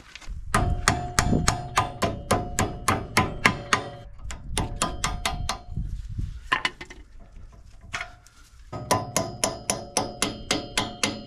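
Rapid hammer blows on steel, about four to five a second, each with a metallic ring, in several runs with short pauses: a loader ram's pivot pin being hammered out.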